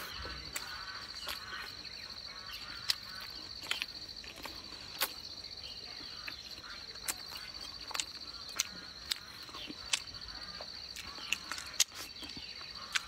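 A steady high insect trill, cricket-like, under irregular sharp clicks of chopsticks against a ceramic plate and the mouth sounds of eating.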